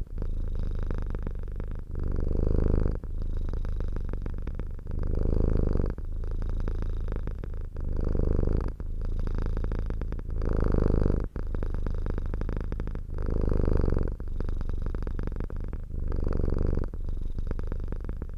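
Domestic cat purring steadily. The purr alternates between softer and louder stretches, with a louder swell about every three seconds.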